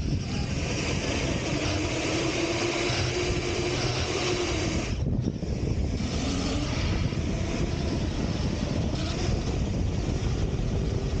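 Six-wheeled RC truck running over sand, heard through its own mounted camera: a dense low rumble of wind on the microphone with a faint motor hum that shifts in pitch. The sound dips briefly about five seconds in.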